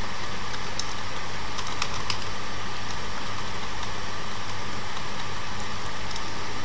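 Steady hum and hiss of the recording setup, with a few faint computer keyboard clicks in the first couple of seconds as code is typed.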